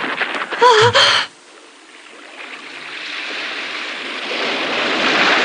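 A short wavering cry about a second in, then the hiss of surf breaking on a beach, swelling gradually louder.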